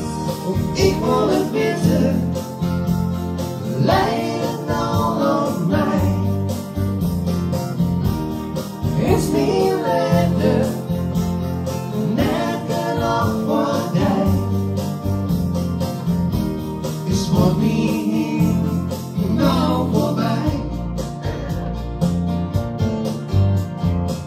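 Acoustic guitar strummed in a steady rhythm while a man and a woman sing together into microphones.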